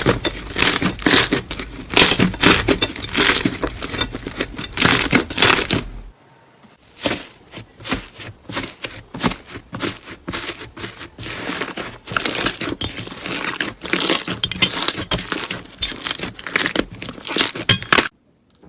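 Crunchy slime being squeezed and pressed by hand: dense crackling and popping that drops off abruptly about six seconds in, then resumes and cuts off suddenly near the end.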